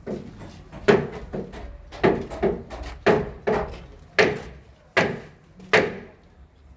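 A series of heavy knocks: about nine sharp blows over six seconds, often in pairs, each dying away quickly.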